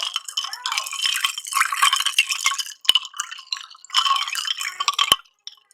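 Dense, wet crackling with a few sharp clicks from a fresh young coconut being eaten close to the microphone.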